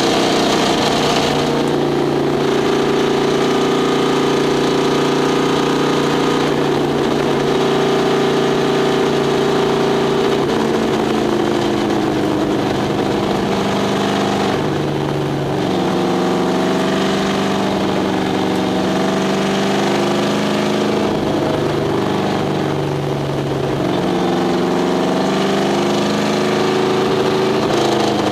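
1969 Corvette race car's V8 engine running under load at racing speed, heard from inside the cockpit. The note holds steady for long stretches, and its pitch drops and climbs back several times from about halfway through.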